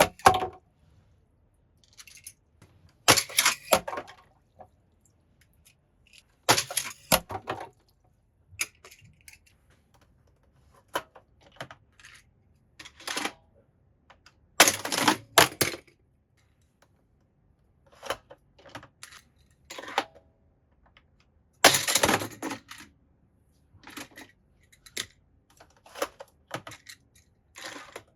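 Toy cars clattering and clicking against each other and a track, in bursts of rapid hard clicks about a second long every few seconds, with fainter scattered clicks between.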